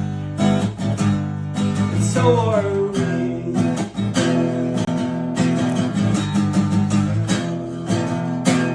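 Acoustic guitar strumming chords in a steady rhythm, with a brief falling melodic line about two seconds in.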